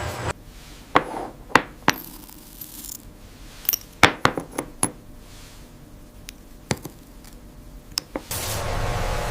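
Glass clinking: about a dozen sharp, irregular clinks and taps, like glass bottles or lab glassware knocking together. A steady background hum cuts off just after the start and comes back near the end.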